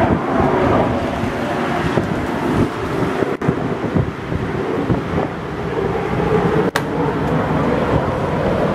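Lamborghini Huracán's V10 engine running at low speed and idling, with wind buffeting the microphone.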